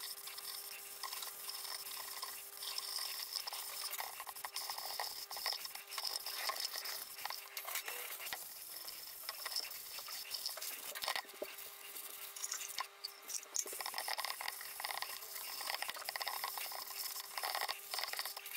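A cloth rubbing finishing oil into an end-grain wooden cutting board, a continuous swishing with many small clicks as it is wiped back and forth. A faint steady hum runs underneath.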